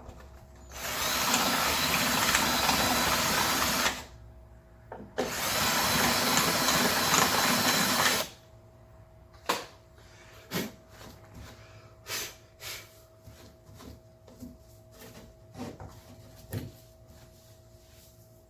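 Power drill running in two bursts of about three seconds each, opening a mounting hole up a bit size. Then several light clicks and knocks of handling.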